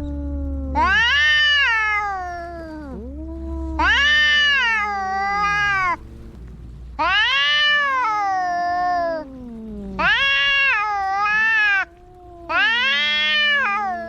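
Domestic cats caterwauling in a fight: about five long, drawn-out, wavering yowls, each about two seconds, answered by lower, sliding growl-like cries in between.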